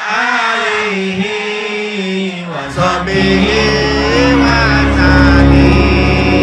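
Men singing sholawat, an Islamic devotional song, in a slow melodic chant. About two and a half seconds in it is cut off by instrumental music with a deep bass and a high held tone.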